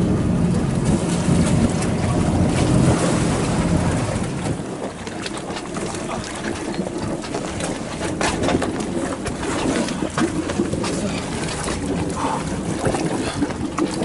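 Wind buffeting the microphone and water slapping around an inflatable dinghy at sea, heaviest as a low rumble for the first four seconds. From about six seconds in come scattered knocks and splashes as a sea turtle tangled in a plastic sack is hauled into the dinghy.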